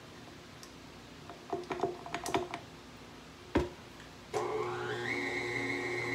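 Light metal clicks as a wire whisk is fitted onto a tilt-head stand mixer, a single knock as the mixer head is lowered, then the mixer motor switches on about four seconds in, its whine rising briefly and settling into a steady hum as it mixes batter.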